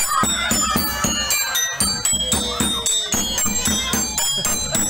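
Street-performer percussion music: a hand drum beaten in a fast, even rhythm of about five strokes a second, with metallic jingling and ringing strikes over it.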